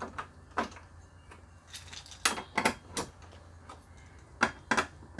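Hand screwdriver driving bolts through a steel mounting-bracket rail into the back of a flat-screen TV: a string of short, sharp metallic clicks at irregular intervals, several coming in quick pairs.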